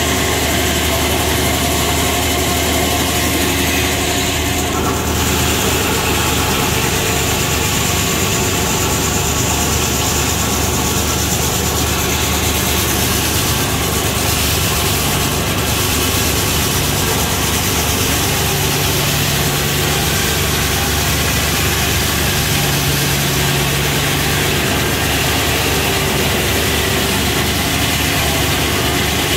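Circular sawmill running, its large blade sawing through an ash log as the carriage feeds it: a loud, steady machine noise.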